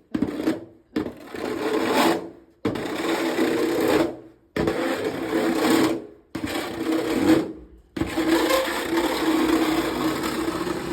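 Snow shovel blade scraping across the porch floor in about six loud pushes of one to two seconds each, each starting suddenly and separated by brief pauses, the last push the longest. The blade scrapes compacted snow off the surface.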